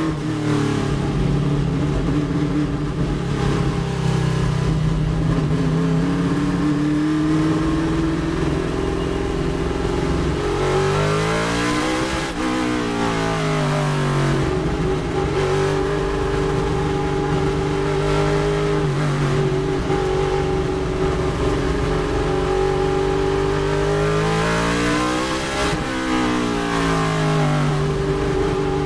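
Chevrolet Nova race car's V8 engine running hard, heard from inside the cabin. The pitch climbs and falls with the throttle, with a sudden drop in pitch about two-thirds of the way through.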